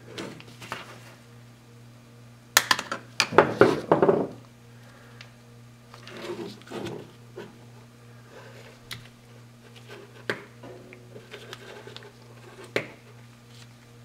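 Plastic clicks, snaps and rattles as a screwdriver pries the clip-on cover off a 2001 Toyota Corolla turn signal switch, with a loud burst of rapid clicks about three seconds in. Softer taps and single sharp clicks follow as the housing is worked apart by hand.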